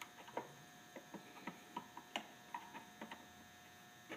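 Irregular small clicks and taps of a flathead screwdriver prying plastic multi-pin wiring connectors out of a control box.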